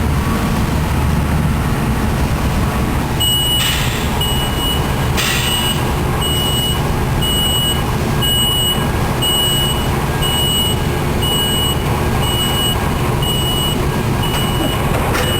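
A vehicle's reversing alarm beeps evenly about twice a second, starting about three seconds in, over a steady engine idle. Two short hisses come early in the beeping.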